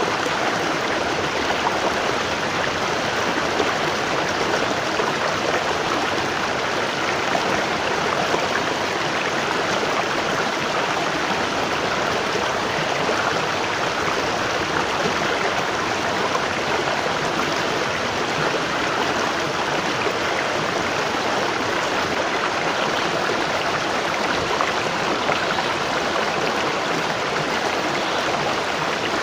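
Waterfall: water falling and rushing in a steady, even wash of noise with no breaks or separate events.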